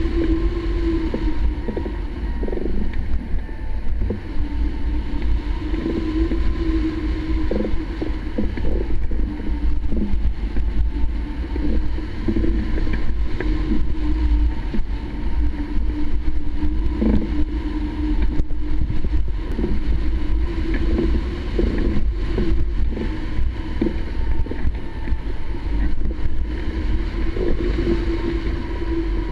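Airflow buffeting a microphone mounted on a hang glider in flight: a steady, rumbling wind roar with a wavering hum running through it.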